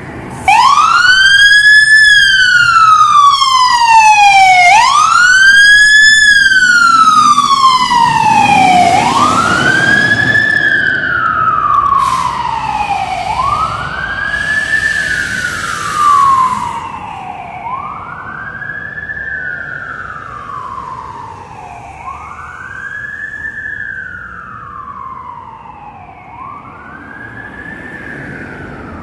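Siren of a 2023 E-One Typhoon fire engine wailing as it pulls out and drives away: a quick rise and a slower fall in pitch, repeating about every four seconds, loud at first and fading with distance.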